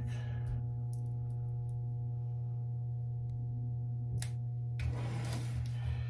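A steady low hum, with several fixed higher tones over it, runs throughout. Over it come a few light clicks of the fiber and small parts being handled. Near the end there is about a second of rustling as the fiber is laid into the fiber cleaver.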